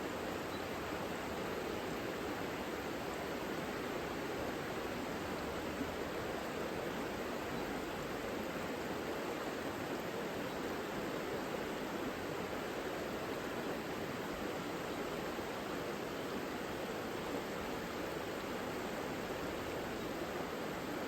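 The Savica river flowing: a steady, even rush of water.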